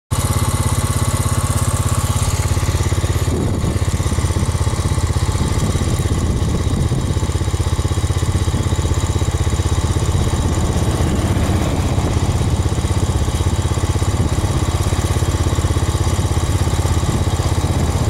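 Small Honda engine running steadily close by, with an even, fast low pulse.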